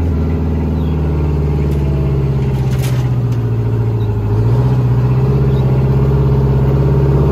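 1972 GMC Astro cabover truck's engine running under way with a steady low drone. About four seconds in, it grows louder and rises slightly in pitch as the revs pick up.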